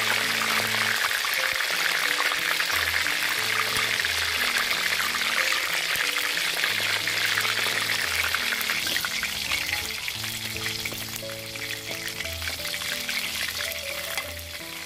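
Whole chicken deep-frying in hot oil in a large wok: a dense, steady sizzle and crackle, thinning a little in the last few seconds.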